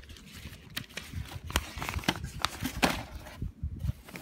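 Scattered taps, clicks and rustling of paper and packaging as items are handled and unfolded.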